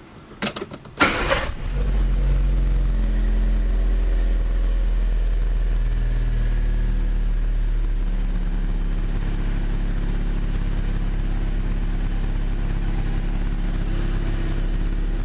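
Fiat Palio Fire 8-valve four-cylinder engine cranked by the starter for about a second and a half, then catching and settling into a steady idle, started right after its ECU adaptation and throttle-position resets.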